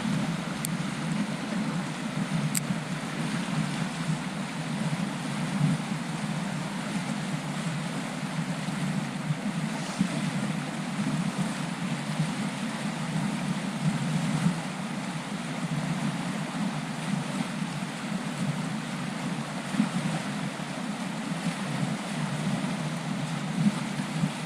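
Steady rushing of a trout stream's flowing water, with no break.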